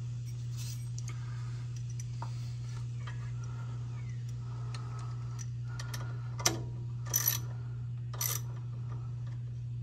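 A wrench tightening the brake-line bolt into a disc brake caliper, giving a few short metallic clicks and clatters in the second half, over a steady low hum.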